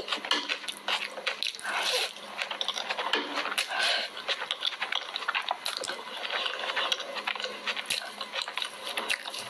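Close-miked eating sounds: wet chewing and smacking, made up of many quick small clicks.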